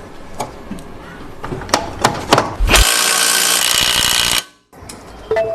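Sharp metal clicks and knocks, then a power tool runs for about a second and a half and cuts off suddenly while the half-shaft with its replaced outer CV joint is fastened back onto the car.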